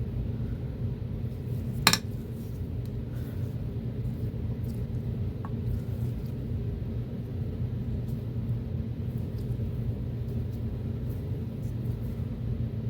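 Metal engine parts being handled: one sharp metallic clink about two seconds in and a few faint light clicks, over a steady low hum.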